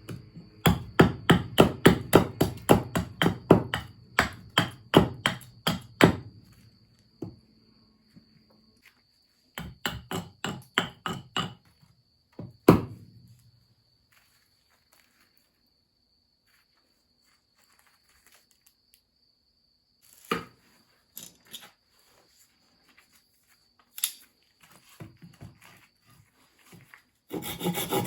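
Fast series of sharp chopping blows on a piece of fatwood, about four a second, in two runs, then one heavier blow. Scattered knocks follow, and near the end steady rasping on the wood begins.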